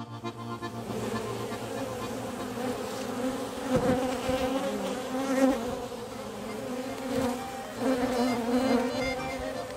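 A colony of honey bees buzzing around an opened hive and a frame of comb crowded with bees: a continuous hum whose pitch wavers.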